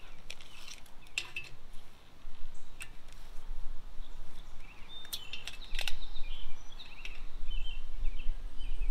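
A few sharp clicks and knocks from handling a tape measure against the metal roof rack, over a steady low outdoor rumble. Birds chirp briefly in the second half.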